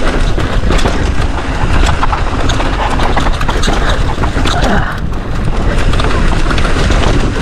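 A mountain bike rolling fast down a rocky dirt trail: the tyres crunch over dirt and stones, and the bike rattles with many quick clicks and knocks. Wind buffeting the helmet or chest camera's microphone makes a steady, heavy rumble underneath.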